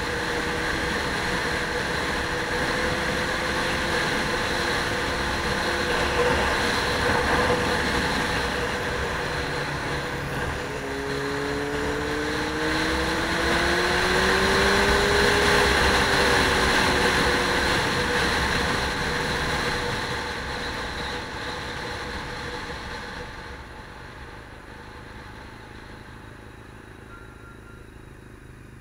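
A motor vehicle running, its engine pitch rising and falling; it grows louder towards the middle and then fades away over the last several seconds.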